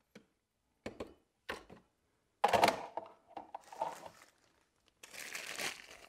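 Hard plastic vacuum attachments clicking and knocking as they are handled and set on a wooden bench. Near the end, a clear plastic packaging bag crinkles as the crevice tool is unwrapped.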